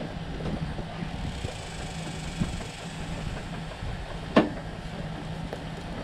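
An engine or machine running steadily with a low rumble, with one sharp click about four and a half seconds in.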